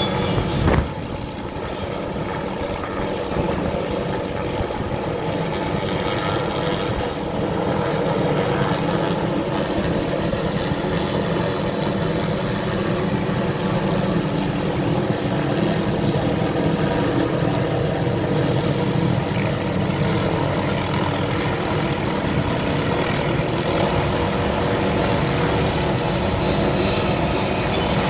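Helicopter hovering with a tree-trimming saw boom hung beneath it: a steady mechanical drone of rotor and engine with several steady tones in it. There is a brief thump just under a second in.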